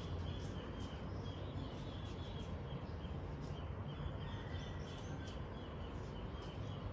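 Steady background noise with a low rumble, with faint small-bird chirps recurring throughout.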